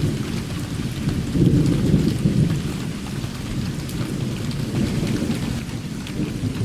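Thunder rumbling low over steady heavy rain, the rumble swelling about a second in.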